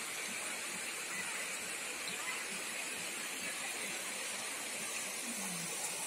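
Steady, even hiss of a shallow mountain river running over stones.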